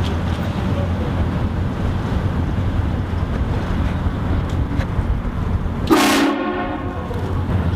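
Steady low rumble of a car driving. About six seconds in comes a short, loud blast from a car-mounted air train horn, which dies away over the next second.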